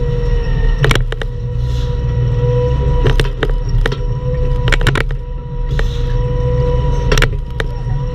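Bobcat E10 mini excavator running, its engine giving a steady low rumble under a steady high whine, with sharp knocks several times as the machine works at a stump.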